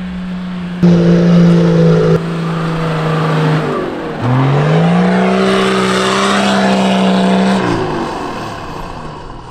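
Toyota LandCruiser engine run hard at high revs climbing a soft sand dune, tyres spinning in the sand. About four seconds in the revs drop sharply and climb back up, and near the end they fall away as the vehicle loses momentum on the climb.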